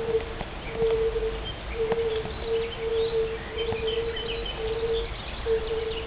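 European fire-bellied toads calling: a string of short, soft hooting notes, all at the same low pitch, about eight of them, one following another. Birds chirp faintly and high in the background.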